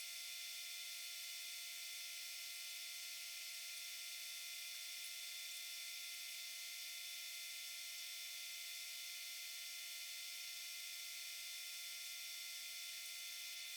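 Faint steady electronic hiss with several thin, steady high tones. It starts and stops abruptly, with nothing from the machine or the people in it: the recording's sound has been cut out here.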